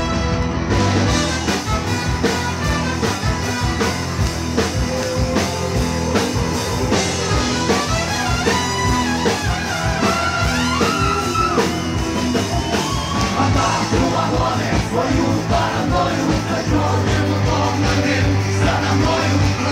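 Rock band playing live and loud: electric guitar, keyboard and drum kit with a steady beat.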